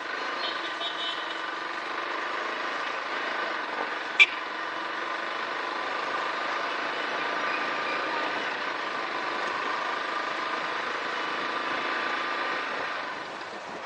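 Motorcycle engine running at a steady cruising speed as the bike rides along, with one sharp click about four seconds in.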